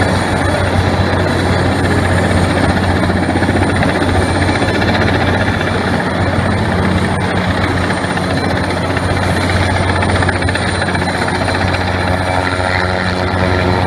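Large utility helicopter hovering close by, its main rotor and engine running loudly and steadily with a deep, even hum.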